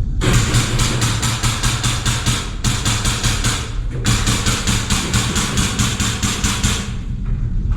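Airsoft gun fired on full auto in two long bursts of rapid, evenly spaced shots, over a steady low rumble of wind and handling noise on the microphone.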